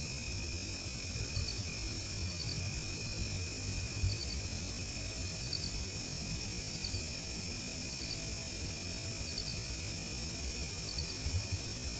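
Night insect chorus of crickets: a steady high-pitched trilling, with a short triple chirp repeating about once a second, over a low rumble.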